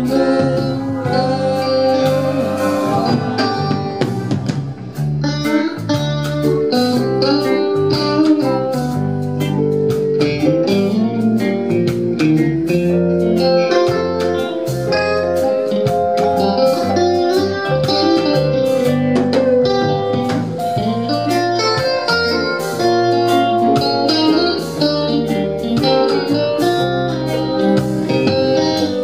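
Live rock band playing an instrumental passage: electric guitars carrying melodic lines over bass and a steady drum beat.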